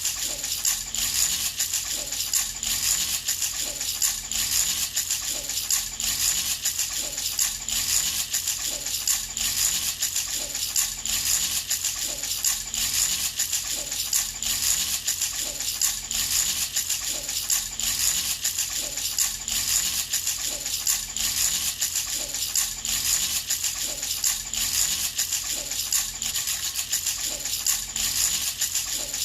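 Baby's toy rattle shaken over and over in a steady, even rhythm: a bright, metallic jingling.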